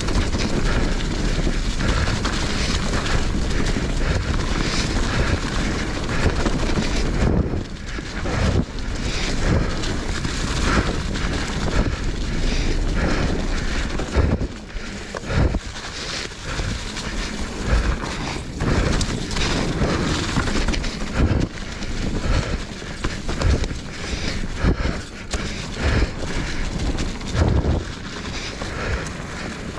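Commencal Meta HT hardtail mountain bike riding down a rocky, loose trail: wind buffeting the microphone, tyres crunching over the ground, and frequent sharp knocks and rattles as the rigid rear end hits rocks, more broken up after about seven seconds.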